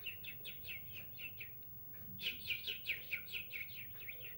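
A man's mouth-whistled imitation of a sparrow-chirp doorbell: quick falling chirps, about six a second, in two runs with a short pause between, the second run tailing off.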